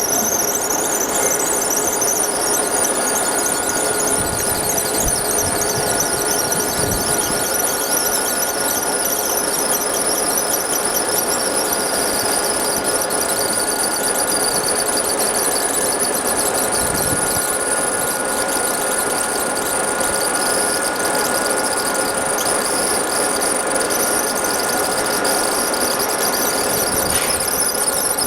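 Laser engraving machine running a job: a steady high-pitched whine with a constant tone over a hiss.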